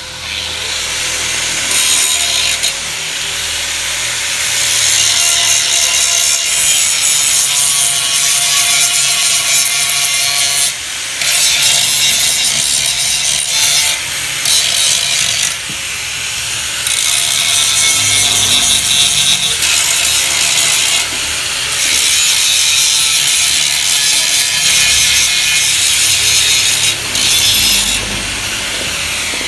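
A power tool grinding or cutting into the steel of a Yamaha RX-King exhaust muffler. It works in long passes with several short breaks.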